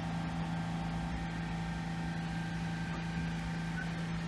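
Steady low hum of an idling engine, a single unchanging tone with weaker overtones.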